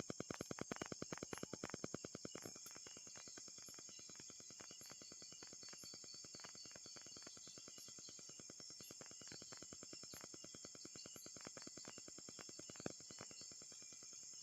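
Night insects chirping: a steady high cricket trill under a rapid, even ticking pulse that is loud for the first couple of seconds and then goes on faintly.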